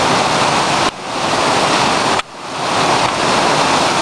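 Waterfall: a steady, loud noise of falling water. It drops off abruptly twice, about a second in and again just past two seconds, and swells back each time.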